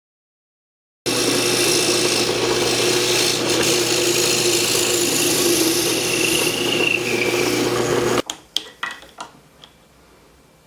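A shop power tool running steadily on wood for about seven seconds, starting and stopping abruptly, followed by a few light knocks and taps.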